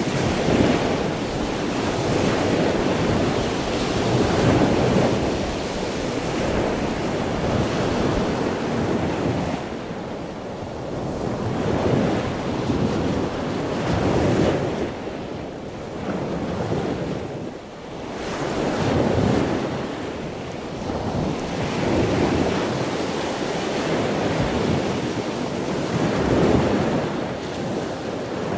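Sea waves breaking and washing against a concrete seawall, the surf rising and falling every few seconds, with wind rushing over the microphone.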